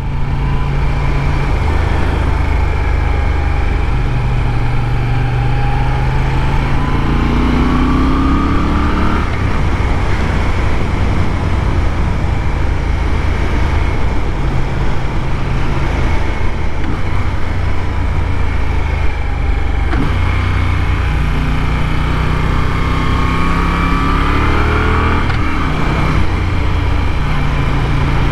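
Moto Guzzi V7 Stone 850's air-cooled transverse V-twin running at road speed, its pitch climbing twice under acceleration and stepping between gears.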